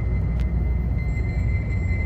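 Harsh noise / power electronics recording: a dense, steady low rumble with a thin high tone held above it, and a single sharp click shortly after the start.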